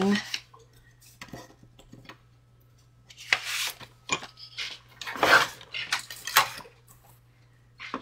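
Clattering and rustling of craft supplies being handled: thin metal cutting dies, cardstock and the plates of a die-cutting machine being picked up and laid down. There are scattered light clicks, with bigger clattering bursts about three, five and six seconds in.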